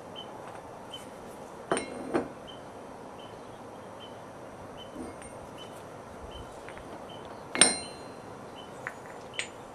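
Steel bottom swage being set down on and lifted from the anvil: sharp metallic clinks, a pair about two seconds in and a louder ringing one near the end, then two lighter ones. A faint short tick repeats about twice a second throughout.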